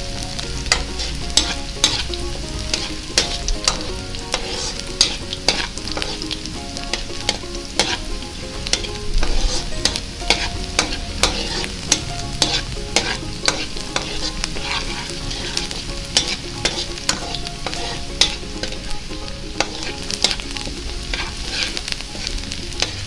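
Chopped onion and spring onion sizzling in hot oil in a wok, stirred with a metal spatula that scrapes and taps the pan in frequent sharp clicks. The aromatics are being fried until golden.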